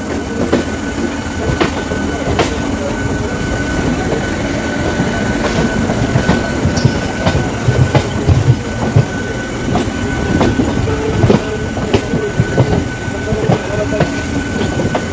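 South Eastern Railway electric suburban local train (EMU) running on the rails, heard close up from its open doorway: a steady rumble of wheels and rail noise with irregular sharp clacks over rail joints and a faint, steady high whine.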